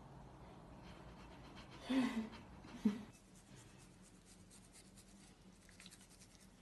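A toothbrush scrubbing a cat's teeth: quick, scratchy bristle strokes from about three seconds in. Before that come two short pitched cries, about a second apart.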